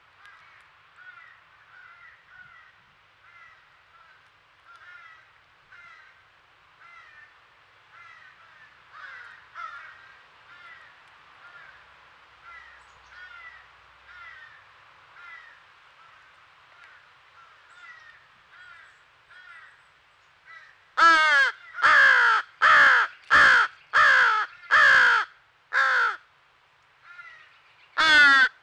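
American crows calling: a long run of faint, repeated cries, about two a second, typical of a fledgling crow begging. Near the end come seven loud, harsh caws in quick succession, and then one more.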